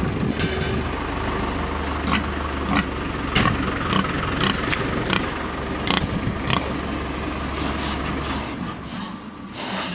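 A steady low engine hum with scattered short clicks and knocks; the hum stops about eight and a half seconds in.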